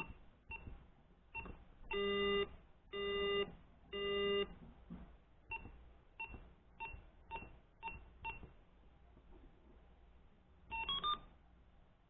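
Arduino-driven 8-ohm speaker beeping: short beeps as keypad keys are pressed, three louder low buzzing tones about a second apart, a further run of key beeps, then a quick rising run of notes near the end.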